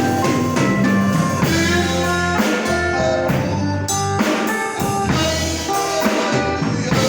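Instrumental passage of a worship song between sung lines: a band with drum kit, bass and guitar playing a steady beat.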